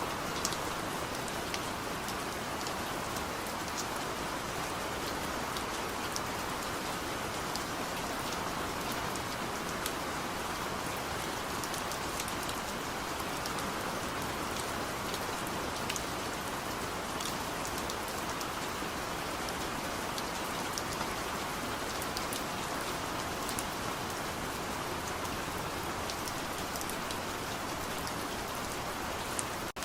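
Steady rain falling onto a surface, a dense, even hiss with scattered individual drop taps.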